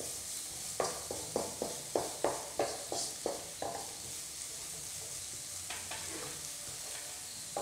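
Onions, garlic paste and curry leaves sizzling in oil in a coated wok while a wooden spatula stirs them, scraping the pan about ten times at roughly three strokes a second in the first half, then only the steady sizzle with a couple of faint strokes later.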